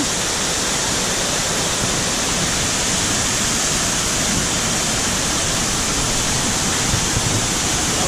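Small waterfall and its rocky stream rushing steadily: a constant, even roar of falling and tumbling water.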